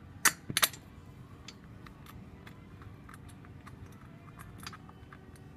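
Two sharp metal clinks about half a second in, then a few light scattered ticks: bolt hardware and hand tools being handled while a drift trike seat is bolted to its frame.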